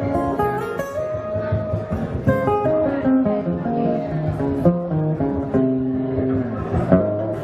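Two acoustic guitars playing live together: a run of picked notes mixed with strums.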